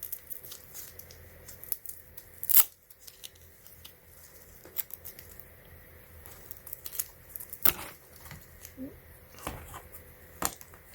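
Handling of a plastic power strip and plug: scattered clicks and rustles, with sharper knocks about two and a half seconds in and again near eight seconds, as a plug is fitted into its outlets.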